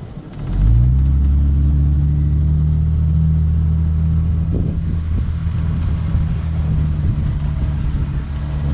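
A 4x4's engine revs up about half a second in, then runs steadily under load as the vehicle climbs a sandy off-road track in low gear.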